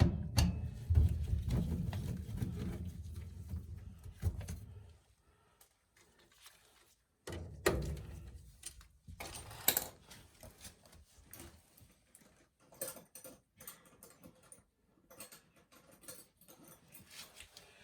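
Scattered clicks and metal clinks of tools and parts being handled while an oil burner is taken apart, with a low rumbling under the clicks for the first five seconds and sharper single clinks later on.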